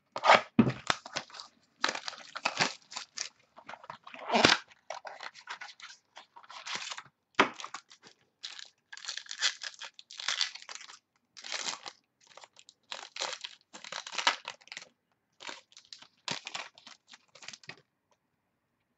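The wrapper of a baseball-card mini box being torn open and crinkled by hand, in a long series of irregular rustling tears with a few sharper, louder rips near the start; it stops shortly before the end.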